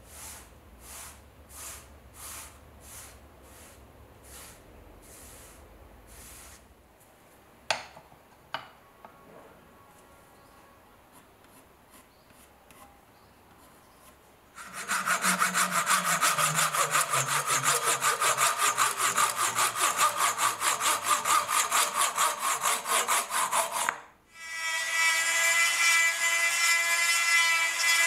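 Rhythmic rubbing strokes on wood, about two a second, die away over the first several seconds, followed by a quieter stretch with two sharp clicks. About fifteen seconds in, a power tool starts cutting wood and runs for about nine seconds. After a brief break, a high-speed rotary tool with a small sanding drum runs with a steady whine against the wood.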